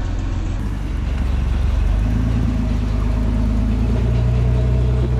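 Engine of a full-size off-road truck running, getting louder about two seconds in and then holding steady.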